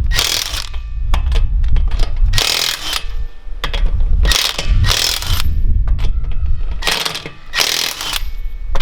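Earthquake XT 1/2-inch cordless impact wrench hammering in repeated bursts of about half a second, with brief let-offs between them, as it works on a car's wheel lug nuts.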